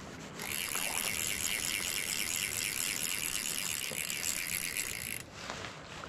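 Fly reel spinning, its drag clicking in a rapid, even ratchet for about five seconds as line runs on or off the spool, then stopping sharply.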